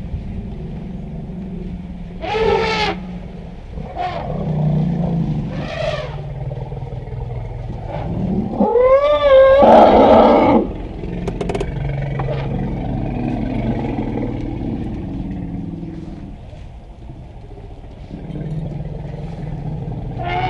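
African bush elephants trumpeting. There are short calls about two and six seconds in, then a long, loud trumpet around nine seconds in that rises and falls before breaking into a harsh blare. Another call starts at the very end. These are the alarm and annoyance calls of an irritated herd.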